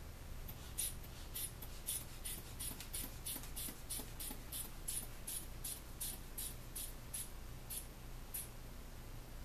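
Rubber hand bulb of a manual blood pressure cuff being squeezed over and over, each squeeze a short airy puff, about three a second, pumping the arm cuff up tight; the puffs slow and stop near the end.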